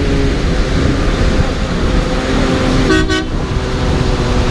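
Large mining haul truck's diesel engine rumbling as it drives past, with a short horn toot about three seconds in.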